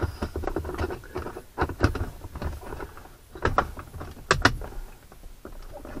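Irregular plastic clicks, knocks and scraping as a switch control panel and its plastic dash trim are pressed and worked into place by hand. The sharpest is a quick pair of clicks about four and a half seconds in.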